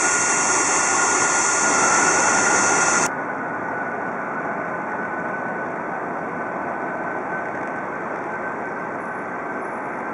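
Rolls-Royce RB211 turbofan engines of a Boeing 747-400 running at taxi power, a steady jet rush with a high whine. About three seconds in the sound cuts abruptly to a quieter, more distant engine hum with the same faint whine.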